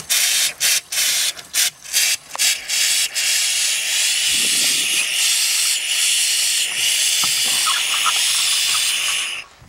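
Compressed air blowing through an outdoor shower's pipes and out of the shower head, a loud hiss of air and spraying water that purges the line of water for winterizing. It sputters on and off several times at first, then hisses steadily, and cuts off suddenly near the end.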